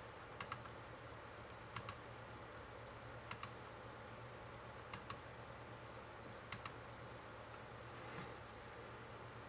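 Faint double-clicks of a computer's pointer button, five of them about every one and a half seconds, as the control software's screens are clicked through. Under them is a steady low hum.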